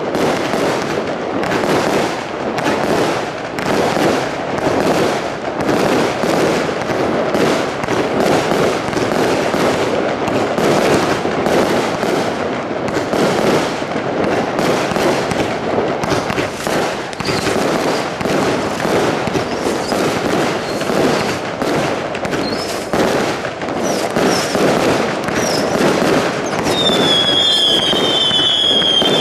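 Fireworks Crazy Category 3 combination Roman candle barrage firing continuously: a rapid, steady stream of launch thumps and bursting shots, several a second. A high whistling tone joins in near the end.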